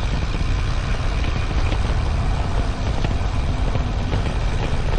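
Steady, loud rumble of wind buffeting the microphone while riding a bicycle, with road noise from the tyres mixed in.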